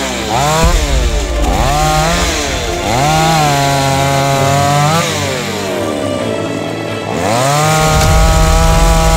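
Two-stroke chainsaw cutting a fallen branch. The engine is blipped up twice and, after each, drops back. It is then held at high speed for about two seconds and let back to idle, and revved up again and held near the end.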